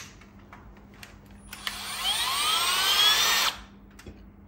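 Cordless drill-driver spinning a screw bit for about two seconds on a miniature circuit breaker's terminal screw, its motor whine rising in pitch as it speeds up, then stopping abruptly; a small click comes just before.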